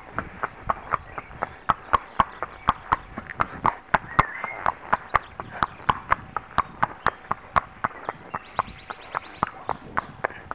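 Horse's hooves clip-clopping on a tarmac lane at a steady, even pace, about four hoof strikes a second.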